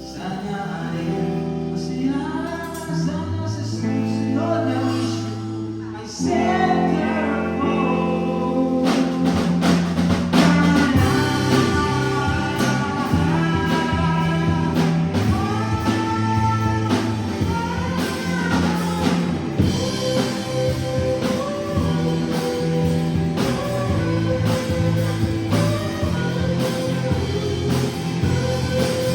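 Music with a singing voice over held bass notes, guitar and drums. The music gets fuller and louder about six seconds in.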